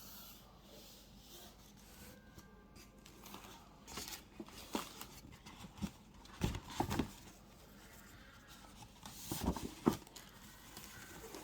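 Packaging being handled and opened: scattered short knocks, taps and rustles of a box and its wrapping, starting a few seconds in, with the loudest knocks about two-thirds of the way through.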